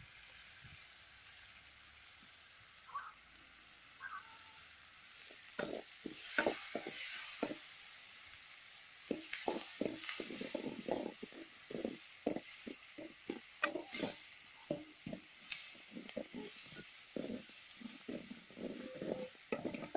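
Onions and tomatoes frying in oil in a metal kadai with a faint steady sizzle. A steel spoon stirs and scrapes against the pan in quick irregular strokes from about six seconds in.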